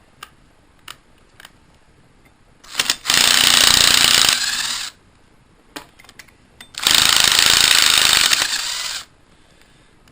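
Cordless impact wrench hammering in two bursts of about two seconds each, spinning a fastener on a small engine; each burst trails off as the trigger is released.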